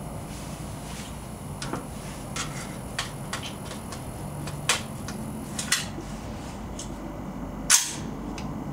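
A single AR-15 carbine shot near the end, a sharp crack that is the loudest sound, with several lighter clicks and knocks before it.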